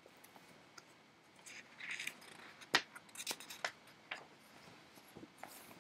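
Faint rustling of a paper picture book being handled, with a few light clicks. The sharpest click comes a little before the middle.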